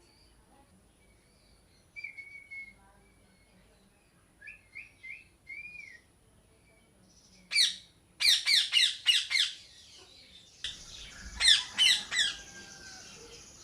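Parrots calling: a few short whistled notes, some rising, then from about halfway a run of loud, harsh squawks in quick succession.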